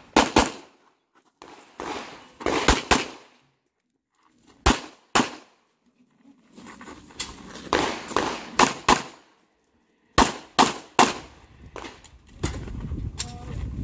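Glock 34 9 mm pistol fired in quick pairs and short strings of shots, with gaps of a second or two between the groups.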